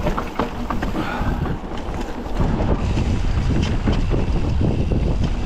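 Mountain bike riding a dirt trail: wind rushing over the microphone, tyres rumbling on the ground, and quick clicks and rattles from the bike. The rumble gets louder a little over two seconds in.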